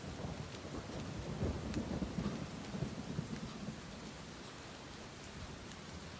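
Steady rain with a low rumble of thunder that swells about a second in and fades by about halfway through. Scattered raindrop ticks sound on top.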